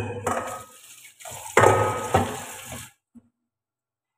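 Water running and splashing in a stainless steel pot at a kitchen sink as food is washed by hand, with a knock of the pot at the start. It grows louder about a second and a half in, then stops abruptly.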